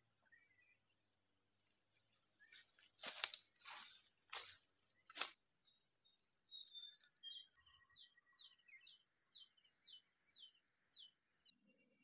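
A loud, steady, high-pitched drone of forest insects, with four sharp knocks between about three and five seconds in, stops abruptly about 7.5 seconds in. A quieter series of short falling chirps then repeats about twice a second.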